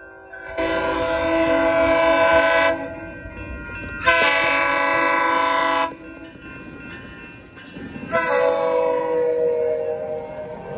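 Horn of an ACE commuter train's CEM cab car sounding three blasts: two long ones, then a third whose pitch drops as the cab car passes. The rumble of the bi-level cars rolling by runs underneath and between the blasts.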